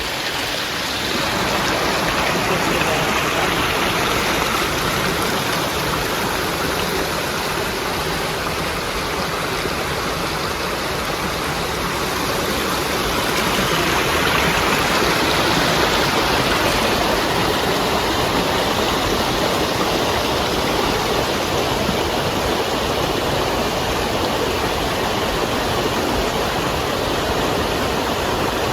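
Creek water rushing steadily, loud and close, a continuous even wash of sound that comes in abruptly at the start.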